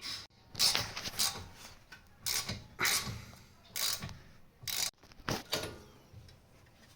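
Wrench work on a brake caliper's bolts: irregular sharp metal clicks and short rasps, about nine in the first six seconds.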